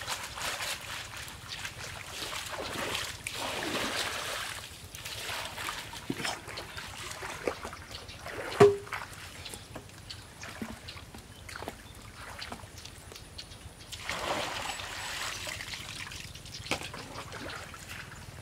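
Shallow muddy pond water splashing and sloshing in repeated swells as people wade through it and scoop with plastic basins. A single sharp knock stands out about eight or nine seconds in.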